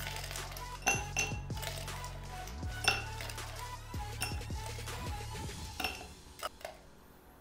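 Ice cubes dropped a few at a time into a tall glass tumbler, clinking against the glass and each other in an irregular series of sharp clinks.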